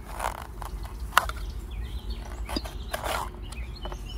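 A knife slicing through limes on a steel plate, in short rasping strokes with a sharp click about a second in. Birds chirp faintly in the background.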